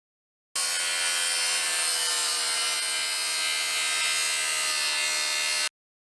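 A steady, hissing, rasping noise with faint tones drifting slowly down. It starts about half a second in and cuts off abruptly shortly before the end.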